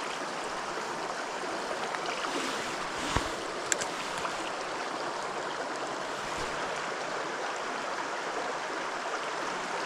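Steady rush of a mountain river flowing over rocks, with a couple of faint clicks a little over three seconds in.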